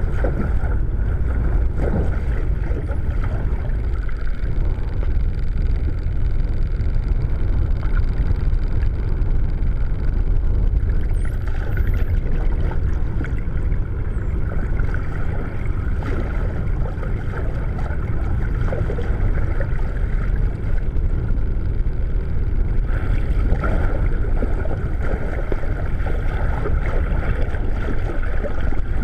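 Steady low underwater rush of water against a submerged camera, with a faint steady hum running through it.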